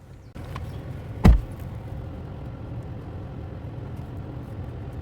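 Steady low rumble of a running vehicle, with one loud thump about a second in.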